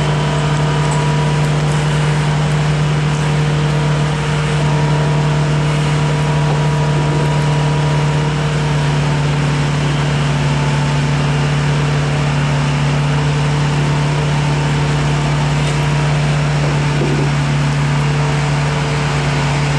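Log truck's diesel engine running at steady revs, a loud, even low drone that holds one pitch throughout.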